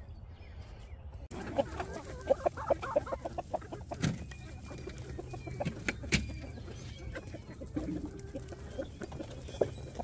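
A flock of chickens clucking close by, starting about a second in, with a few sharp clicks among the calls.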